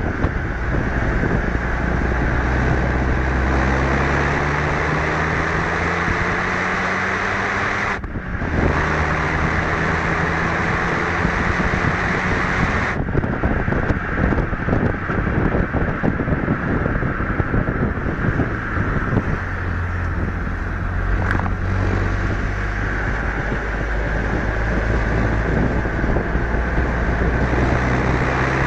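Renault Mégane RS 250 Cup's turbocharged four-cylinder engine pulling on track. Its pitch rises steadily, breaks off briefly about eight seconds in at a gear change, then climbs again. A rougher, noisier stretch follows in the middle before the engine note rises once more near the end.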